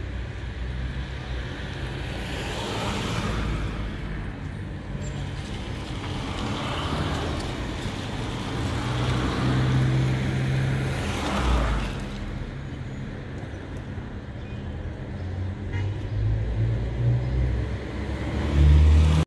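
Road traffic: several cars pass one after another, each swelling and fading over a steady low rumble.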